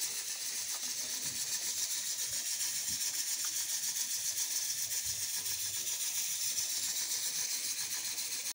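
Dampened wheat and rice flour for puttu being rubbed and mixed on a plate: a steady, hiss-like rubbing with a fast, even pulse as the flour is worked to a crumbly mix.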